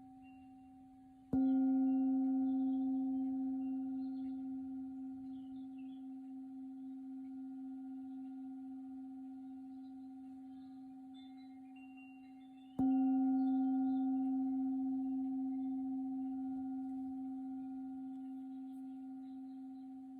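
A Tibetan singing bowl tuned to the note C, struck twice about eleven seconds apart. After each strike it rings with a long, slowly fading tone that wavers gently in loudness.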